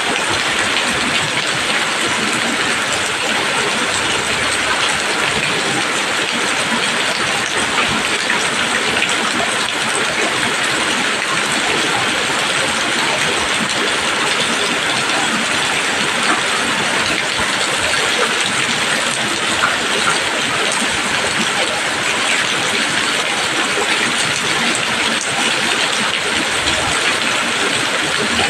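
Steady rain pattering on leaves, a dense even hiss of many drops with no let-up.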